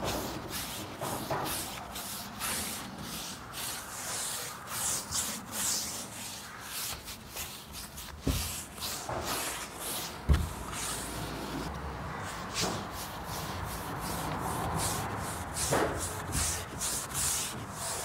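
Bristle paintbrush swishing over solid wood as a coat of oil is brushed on, in quick back-and-forth strokes about two a second. Two dull knocks about eight and ten seconds in, the second the loudest sound.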